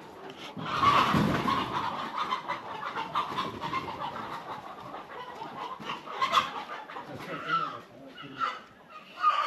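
Domestic chickens clucking and calling, several birds at once, busiest and loudest about a second in.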